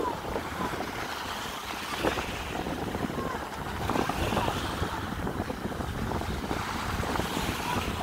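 Wind rumbling on the microphone over small waves, with a jet ski's engine running faintly out on the water.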